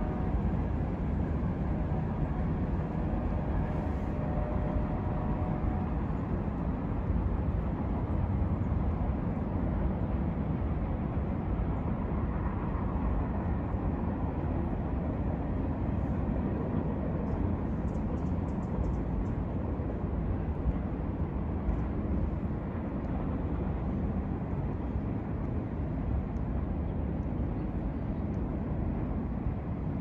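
Freight train rolling past: a steady low rumble from the manifest's cars on the rails.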